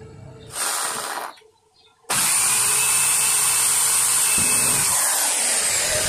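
Electric drill triggered briefly for under a second, then, after a short pause, run steadily with a high whine from about two seconds in, drilling into a polycarbonate plastic fan blade.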